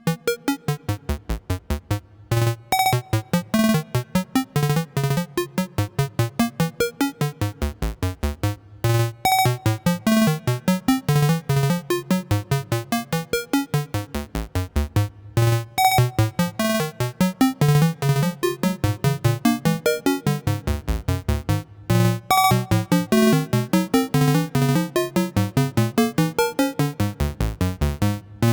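Dreadbox Dysmetria synthesizer playing a fast sequenced pattern of short plucky notes, about five a second, with reverb added. The phrase repeats, with a brief break about every six and a half seconds.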